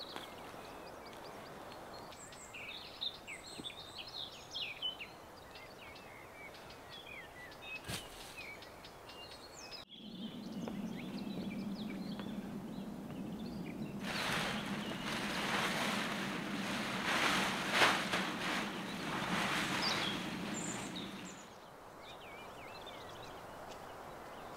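Small birds chirping and singing over steady outdoor background noise. About ten seconds in, the sound cuts abruptly to a steady low hum, and a few seconds later a louder rushing noise joins it. Both stop together near the end, leaving quieter background noise.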